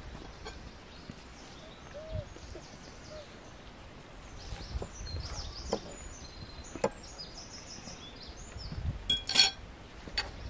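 Forks clinking and scraping on china plates during a meal: a few light clicks, then a louder ringing clatter near the end. Small birds chirp in the background.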